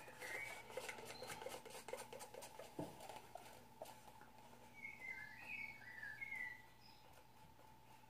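A stirring stick clicking and scraping against a small cup of acrylic paint: a quick run of light clicks, ending in a single knock about three seconds in. Near the end, a few short bird chirps.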